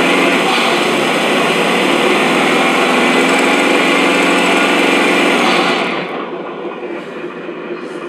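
Engine sound from the sound module in a scale RC Land Rover Defender 110, played loud and steady at high revs through its speaker, then dropping to a quieter, thinner running sound about six seconds in.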